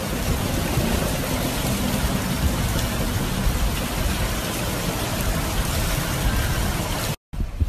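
Rain falling steadily, an even hiss; it breaks off abruptly about seven seconds in.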